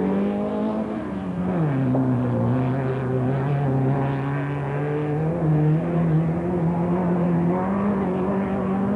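Off-road race car engine running hard. Its pitch drops sharply about a second and a half in, then climbs slowly.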